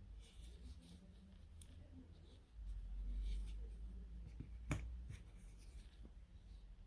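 Faint scratching and rubbing handling noises over a low rumble, with one sharp click a little past the middle.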